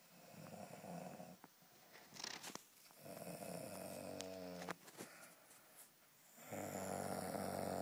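A boy snoring in his sleep: three long snores, each about a second or more, with pauses between breaths. The middle one has a buzzing, pitched tone.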